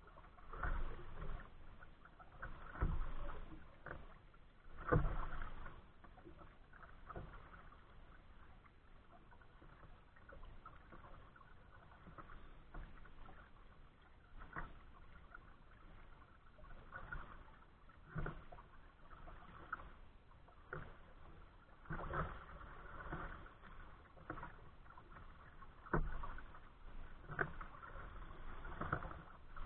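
Kayak paddle strokes splashing in calm lake water, coming at irregular intervals of one to a few seconds, over a faint steady wash of water. The strokes are most frequent near the start and toward the end, with a quieter stretch in the middle.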